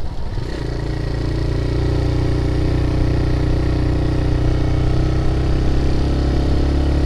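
Single-cylinder engine of a TVS Raider 125 motorcycle running at a steady speed. It firms up about half a second in and grows louder over the first two seconds, then holds an even note.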